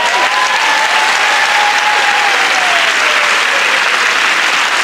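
Studio audience applauding, with a long drawn-out call over the clapping that fades after about three and a half seconds.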